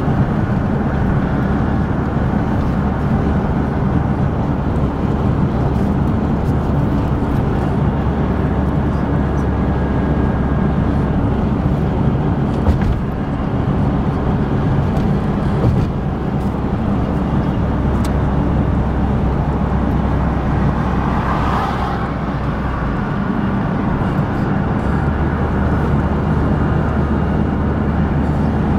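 A car being driven, with a steady hum of engine and tyre noise as heard inside the cabin.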